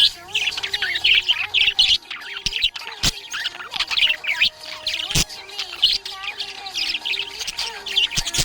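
Budgerigars chirping and chattering, a steady stream of quick, high chirps and squawks, with a few sharp clicks.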